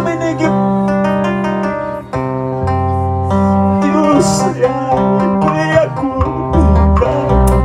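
Live worship band playing: a plucked, bending electric guitar melody over sustained electronic keyboard chords and a steady bass line, with a brief drop in loudness about two seconds in.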